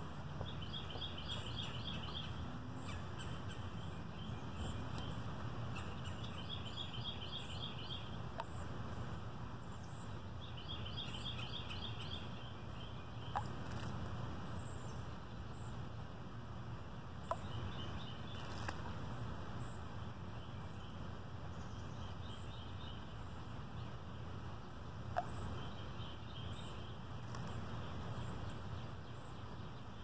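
A songbird singing a short, rapid, even trill, repeated every few seconds, over a steady low outdoor rumble. A few sharp clicks stand out in the middle and later part.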